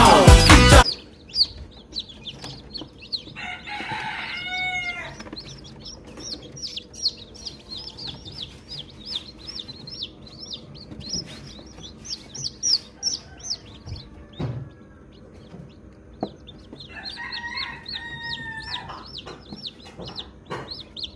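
Newly hatched Elba chicks peeping: a continuous run of short, high, arching cheeps, several a second. An adult chicken calls twice over them, about three seconds in and again about seventeen seconds in. Background music cuts off about a second in.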